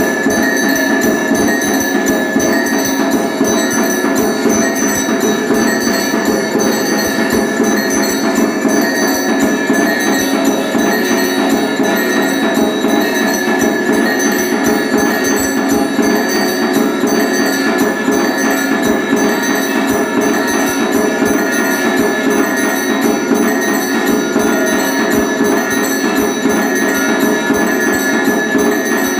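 Automatic electric temple drum-and-bell machine running: a bell struck rapidly and continuously over fast, unbroken drum beats, with no pauses.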